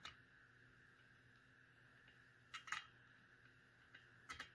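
Faint clicks of a screwdriver working a screw into a metal ceiling-fan light-kit housing: one at the start, a pair about two and a half seconds in, and another pair near the end, with near silence between.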